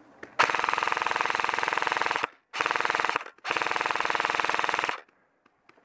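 Modified G&G Combat Machine airsoft electric rifle firing full-auto in three bursts, long, short, then long, each a fast, even clatter of shots.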